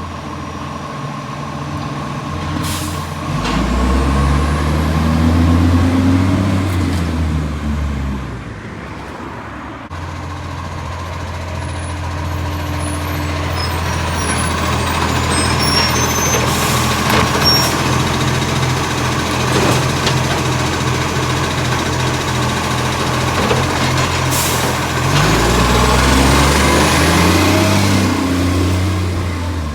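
Garbage truck's diesel engine, which has an exhaust leak, revving up twice with its pitch rising and falling, running steadily in between, with several sharp hisses of air.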